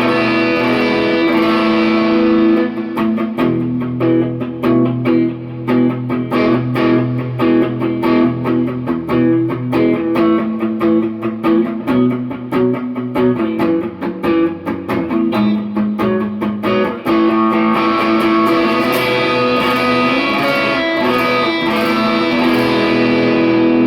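1996 Ibanez Talman electric guitar on its Lambertone Crema neck pickup, played with light overdrive. It opens with ringing chords, moves into quick picked single-note lines, and goes back to held chords near the end.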